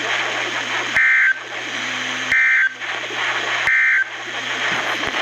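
Emergency Alert System end-of-message signal received over the radio: three short bursts of SAME digital data tones, each about a third of a second, with about a second between them. Steady receiver hiss and a low hum run between the bursts.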